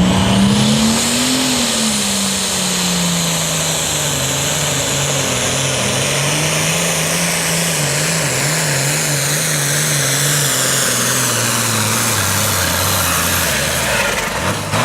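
Super Farm class pulling tractor's engine running at high revs under load as it drags the weight sled. The pitch peaks about a second and a half in, then sags and wavers as the load builds, and falls off near the end as the pull finishes.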